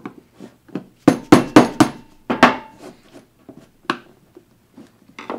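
A mallet tapping a screwdriver to knock through thin plastic in an enclosure wall: a series of sharp knocks, the loudest a handful between about one and two and a half seconds in, followed by lighter taps and clicks.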